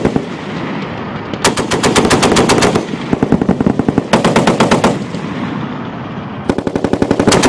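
M2 .50-calibre Browning heavy machine gun firing short bursts of automatic fire, about nine or ten rounds a second. Three bursts of one to one and a half seconds each, separated by gaps of about a second and a half.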